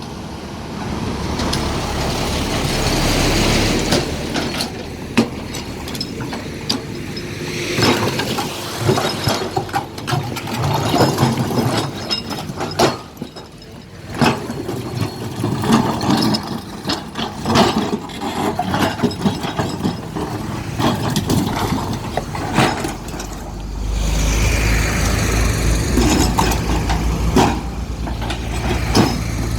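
Shantui SE210 hydraulic excavator working a pile of stone: its diesel engine running under load, with repeated clattering and scraping of rock against the bucket. The engine gets louder and steadier near the end.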